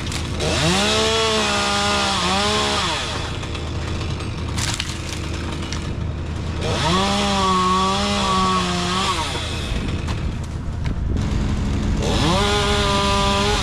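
Two-stroke chainsaw revved up three times, each time held for about two seconds in a cut and then dropping back, the last starting near the end.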